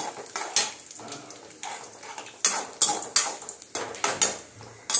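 Metal ladle scraping and clinking against a metal kadai at irregular intervals while dried red chillies are stirred in hot oil, with a faint sizzle of frying underneath. The stirring keeps the chillies from burning.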